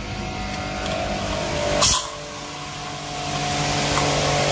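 Portable electric pressure washer running with its motor humming steadily. About two seconds in there is a short sharp burst, then the hum drops in pitch and the hiss of the water jet from the spray gun grows louder.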